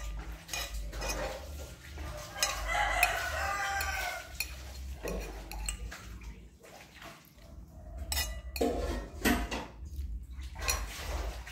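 A metal spoon clinking and scraping against a ceramic plate as food is scooped up and eaten, in short irregular clicks. A long animal call with a wavering pitch sounds in the background, starting about two seconds in and lasting about two seconds.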